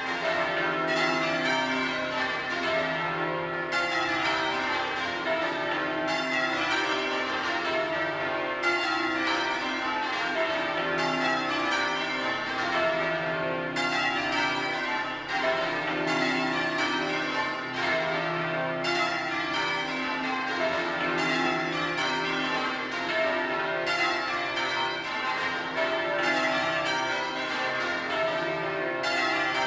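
The Bow Bells, a ring of twelve church bells cast by Mears and Stainbank in 1956 with a 41 cwt tenor in C, being rung in changes: a continuous, even stream of bell strikes in rows, with each fresh row coming about every two and a half seconds.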